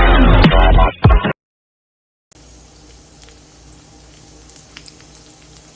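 Loud electronic dance music that cuts off abruptly about a second in, then a moment of silence. After that, eggplant slices frying in hot oil in a pan: a faint steady sizzle with scattered small pops.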